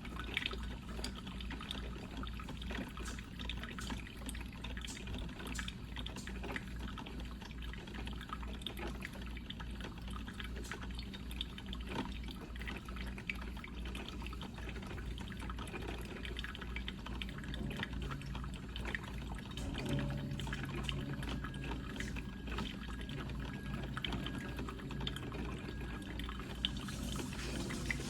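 Coffee percolator perking: water bubbling and gurgling steadily through the brew, with many small pops.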